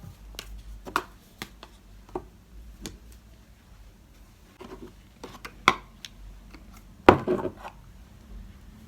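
Hair care product bottles and tubes being picked up and set down while tidying, giving scattered light knocks and clicks, with two louder knocks a little past the middle and near the end.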